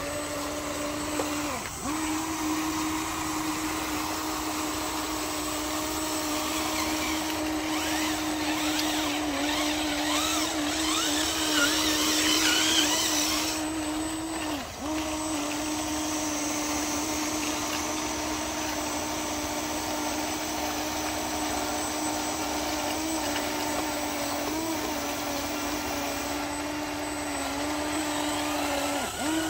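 Small electric motors and gearboxes of radio-controlled construction models, a bulldozer and a dump truck, whining steadily at one pitch as they work in mud. The whine dips briefly a few times. A louder hissing rattle builds from about a quarter of the way in and cuts off suddenly near the middle.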